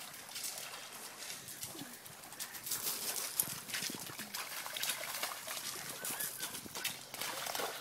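Irregular crunching and scuffing of steps and paws over the stones and mud of a lakeshore, with faint calls now and then.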